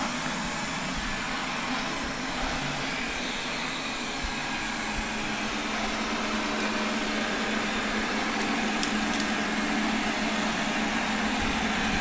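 Two robot vacuum cleaners running at once, a Xiaomi STYTJ02YM vacuum-mop and an older iRobot Roomba: a steady whirr of suction fans and brush motors, with a low hum that grows stronger about halfway through.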